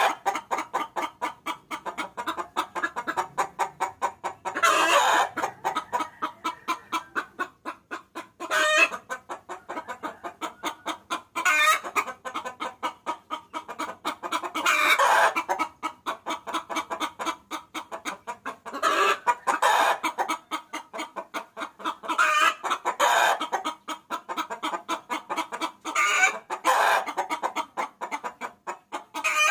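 Hen cackling: a fast run of short clucks, several a second, broken every three to four seconds by a louder, drawn-out call. It is a hen calling for a cock, used as a lure call.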